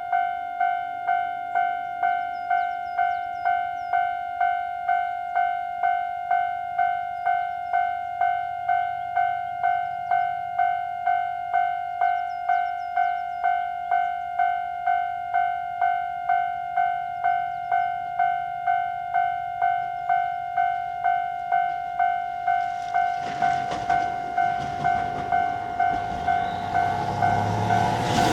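Japanese level-crossing warning bell ringing a steady electronic ding at about one and a half strikes a second. From about two-thirds of the way through, the rumble and rush of an approaching KiHa 150 diesel railcar rises beneath it.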